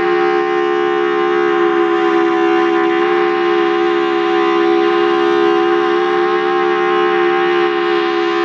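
Federal Signal Thunderbolt 1003 civil-defense siren sounding a steady alert tone, held at a constant pitch and loudness. The town's T-128 siren is also heard in the mix.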